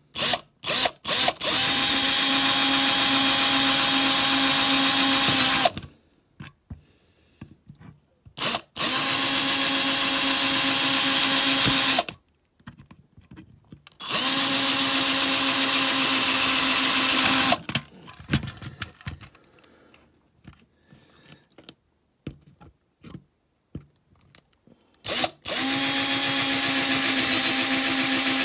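Electric drill drilling out the rivets that hold a diecast model van's base on: a few quick trigger blips, then four runs of steady whirring of several seconds each, with short pauses between.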